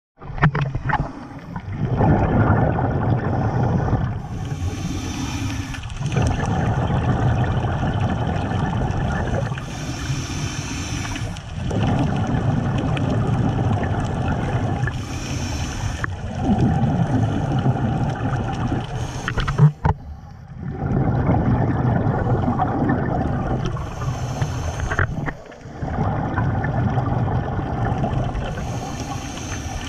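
Scuba diver breathing through a regulator: long bubbling, gurgling exhalations alternate with short hissing inhalations, about one breath every five seconds.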